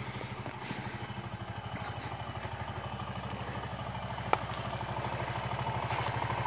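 Suzuki VanVan 200's single-cylinder four-stroke engine idling steadily, growing a little louder toward the end. A single sharp click about four seconds in.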